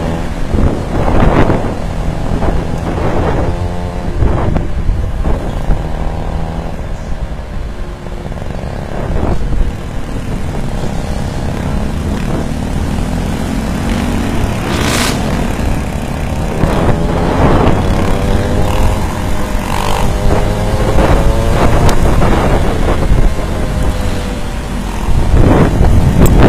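Small gas engine of a stand-up scooter running under way, its pitch rising and falling with the throttle, over a steady low rumble. Brief gusts of wind noise hit the microphone several times, the loudest near the end.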